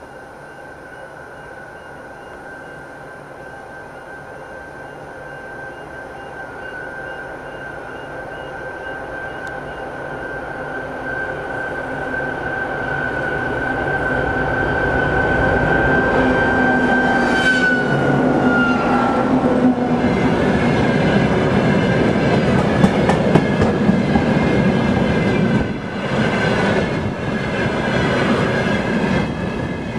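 A 2TE116 twin-section diesel freight locomotive approaches and passes. The drone of its diesel engines and a high whine grow steadily louder, and the whine falls in pitch as the locomotive goes by about 18 seconds in. Then a train of tank wagons rolls past with a steady rumble and repeated wheel clatter over the rail joints.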